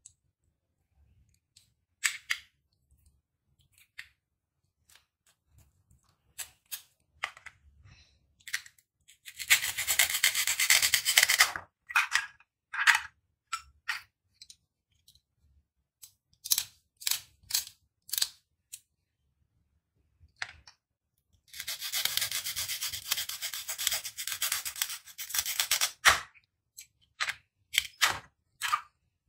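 Plastic velcro toy fruit being handled and cut on a plastic cutting board: scattered clicks and knocks of the pieces, with scratchy rasping. Two longer rasps stand out, one of about two seconds and a louder one of several seconds past the middle.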